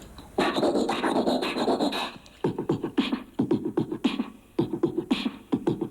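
A man beatboxing: about two seconds of a buzzy scratch-like vocal sound, then a steady beat of vocal drum hits, his own mouth-made rhythm for breakdancers to dance to.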